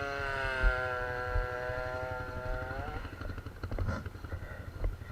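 ATV engine revving up and holding a steady speed for about three seconds, then the throttle drops off and it fades into rough low rumble with a few knocks.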